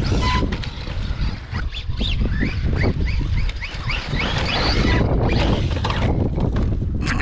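Arrma Outcast 4S RC monster truck's brushless electric motor whining in short rising bursts as the throttle is blipped over dirt ramps, with tyre and gravel clatter, under heavy wind rumble on the microphone.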